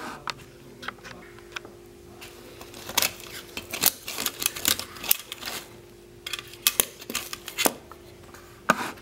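Bare fibreglass circuit boards clicking and clattering against one another as a handful is shuffled and dropped onto a pile, in two spells of quick clicks a few seconds apart, over a faint steady hum.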